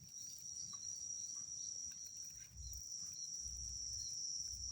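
A steady, high-pitched insect chorus of crickets trilling without a break, with low rumbling handling noise coming in from about two and a half seconds in.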